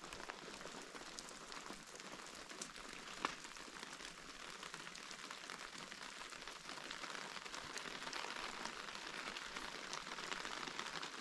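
Light rain falling: a steady faint hiss with scattered drop taps, one sharper tap about three seconds in, growing slightly louder near the end.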